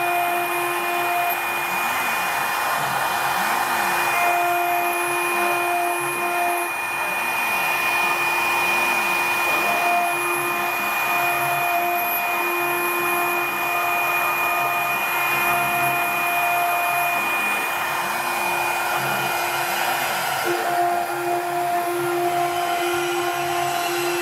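CNC engraving machine's spindle running at high speed while its small cutter engraves a brass seal. It is a steady whine over a hiss, and a few of the tones in it cut in and out.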